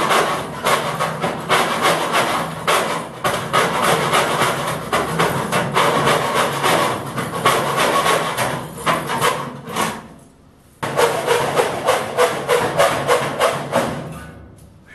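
Die grinder with a friction cut-off disc cutting through the sheet steel of a filing cabinet: a loud grinding whine with rapid, irregular rattling as the disc bites. It stops briefly about ten seconds in, starts again with a jolt, and winds down near the end.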